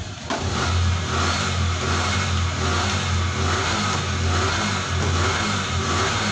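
A motor running steadily with a low, even hum that sets in abruptly just after the start.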